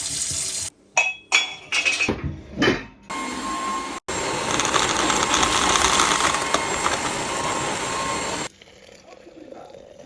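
A few short clinks and knocks of household items, then a washing vacuum cleaner's motor running steadily with a constant whine for about five seconds, cut off suddenly.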